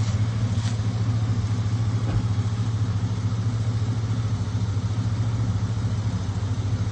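2003 Chevrolet Avalanche 1500's 5.3-litre V8 idling steadily, a low even hum with a fast regular pulse.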